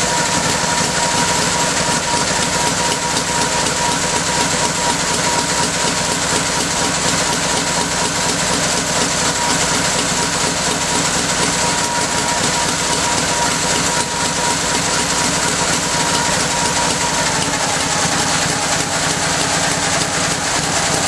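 Vintage Indian motorcycle's V-twin engine running steadily on its stand.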